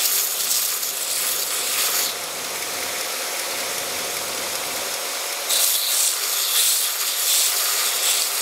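Belt grinder running steadily with a faint whine, and a clear plastic drill bit ground against the abrasive belt in two passes: a rasping hiss for the first two seconds, then again from about five and a half seconds in. The bit's cutting-edge relief is being ground.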